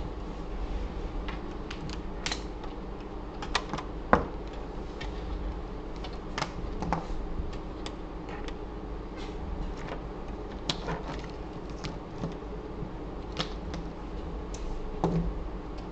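Irregular clicks and taps of hands handling tools, probes and parts around an opened desktop PC case, the sharpest about four seconds in, over a steady low hum.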